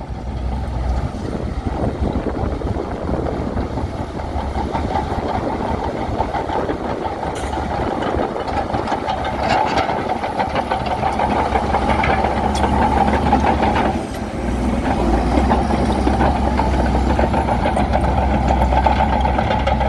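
Bulldozer's diesel engine running steadily while working, with a few short metallic clanks; its low rumble gets heavier about two-thirds of the way in.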